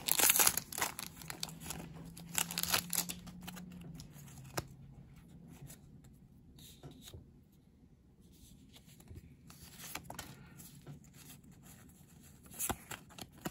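A foil trading-card booster pack wrapper crinkles and tears for the first few seconds. After that, cards being handled give quieter rustles and soft clicks, with one more brief crinkle near the end.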